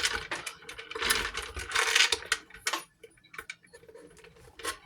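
Clock movement being handled: rustling in the first couple of seconds, then scattered, irregular metallic clicks and taps.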